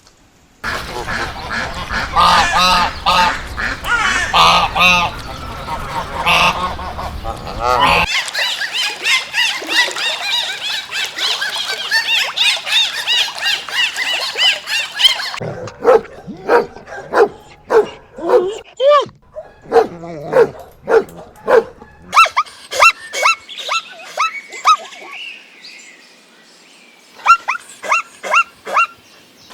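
Geese honking in runs of short, repeated calls, within a string of cut-together farm bird recordings. Earlier, a dense chatter of many birds calling at once gives way abruptly to the honking about halfway through.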